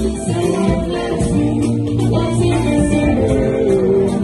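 Live band music with guitar and drums, and a woman singing into a microphone over it.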